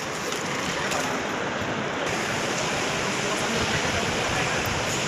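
Steady rushing noise of a Mumbai local train in motion, wind and wheel noise with no distinct clicks or tones, growing slightly louder about a second in.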